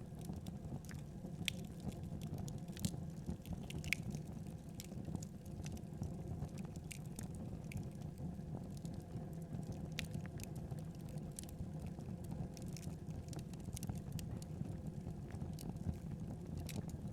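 Wood fire burning in a fireplace: a steady low rush with irregular sharp crackles and pops.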